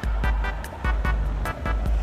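Music with a heavy bass beat, a deep hit about every 0.8 s with sharp ticks in between.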